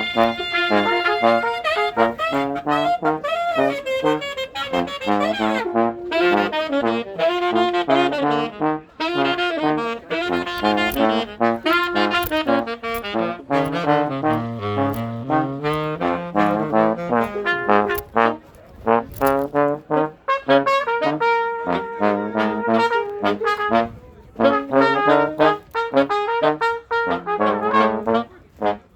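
Small brass band jamming: several horns play melody lines over a low bass line, in phrases broken by short gaps.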